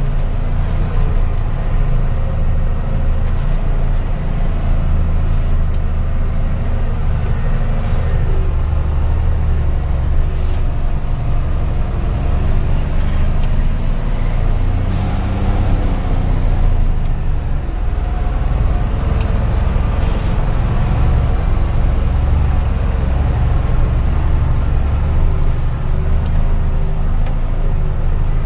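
Truck's diesel engine pulling hard up a steep dirt climb, heard from inside the cab as a loud steady low drone whose note dips and rises around the middle. A few short sharp clicks or rattles come at intervals.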